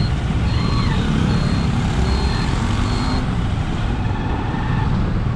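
Steady road and wind rumble from a moving motor vehicle. Over it, a high electronic beep repeats a little more than once a second and stops about three seconds in.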